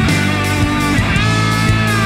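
Rock music with electric guitar and a steady drumbeat.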